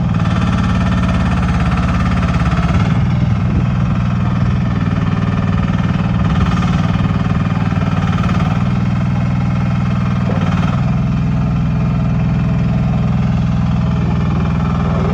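1.2-ton mini excavator's engine running steadily, its note changing about three seconds in and again near eleven seconds.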